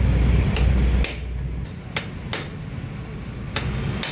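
Five sharp metal-on-metal taps and clinks, spaced irregularly, as tools and parts are worked on a motorcycle's clutch during the fitting of new clutch plates. A low rumble underneath dies away about a second and a half in.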